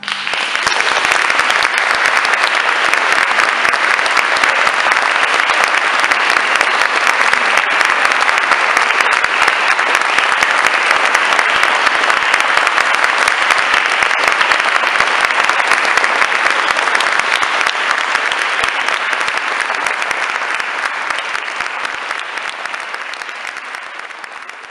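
Audience applauding as the music ends: dense, steady clapping that thins out and fades over the last few seconds.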